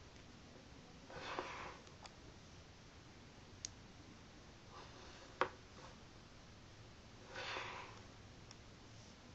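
Pages of a photobook being turned by hand: two soft paper rustles, about a second in and again near the end, with two small sharp clicks between them.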